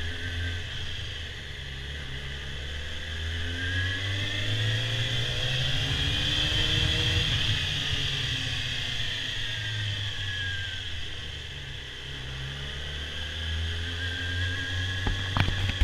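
Stock Yamaha R6 inline-four motorcycle engine running at low revs as the bike rolls slowly. Its pitch rises gently for a few seconds and then falls back, and it echoes off the concrete of a parking garage. A few sharp clicks come in near the end.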